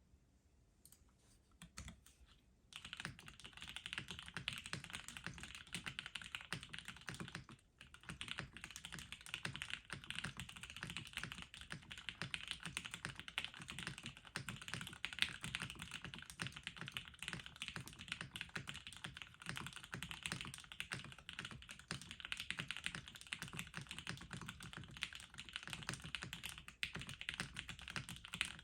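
Typing on a Hoshizora custom mechanical keyboard with lubed and filmed Gateron Mink linear switches, a POM plate, TX stabilizers and Tomocaps Hangwa keycaps: a stream of clacking keystrokes. A few scattered key presses come first, then steady dense typing from about three seconds in, with a brief break near eight seconds.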